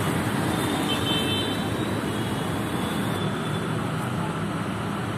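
Steady road traffic noise from vehicles passing on a wet street.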